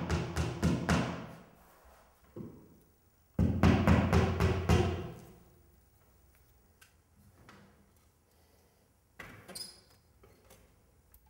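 Hammer tapping in quick runs of blows, about five a second, fixing an unstretched canvas to a wall: one run at the start, a single blow, then a second run about three and a half seconds in. Faint knocks follow near the end.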